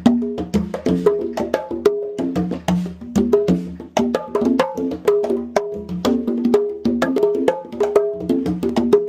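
A set of conga drums played hand-struck in a fast, steady rhythmic pattern, several strikes a second, mixing short slaps with ringing open tones at a few different pitches.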